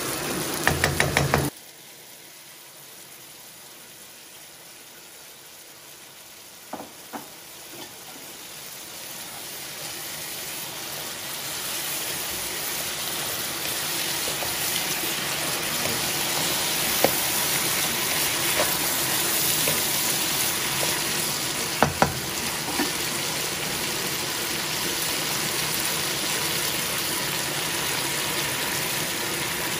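Pork and vegetables stir-frying in a wok: a hissing sizzle that swells over several seconds and then holds steady. A wooden spatula knocks against the pan now and then, in a quick run of knocks right at the start and a few single knocks later.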